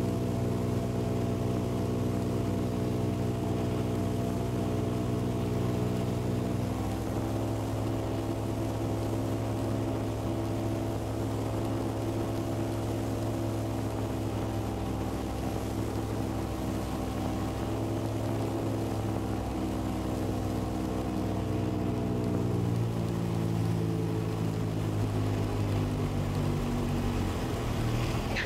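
Titan Tornado II light aircraft's engine and propeller droning steadily, heard from inside the cockpit on a landing approach. The engine note steps up about seven seconds in, then falls back in two steps near the end as power comes off for touchdown.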